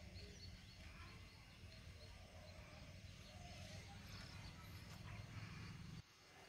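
Near silence: faint outdoor background with a low hum, cutting out almost entirely near the end.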